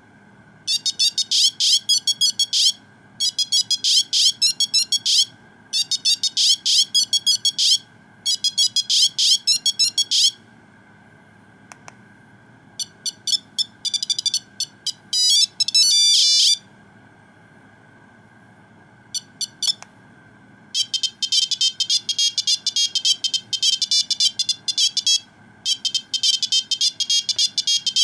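Nokia 2100 mobile phone playing its built-in monophonic ringtones through its small speaker: fast, high beeping melodies. A two-second phrase repeats four times, then after a short pause other tunes follow, the last one running almost without break.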